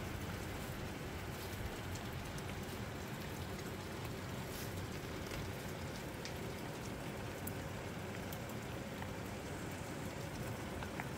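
Steady rain falling, with many individual drops ticking sharply here and there.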